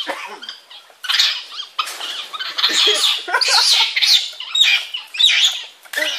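Excitable monkeys calling, a run of high-pitched squawking calls in bursts with short gaps between.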